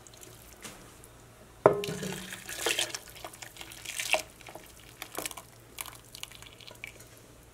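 A creamy roux of butter, flour, milk and cream poured into a pot of vegetable soup, splashing and sloshing as a slotted spoon works it in. A sharp clink about one and a half seconds in is the loudest sound, followed by irregular liquid splashes.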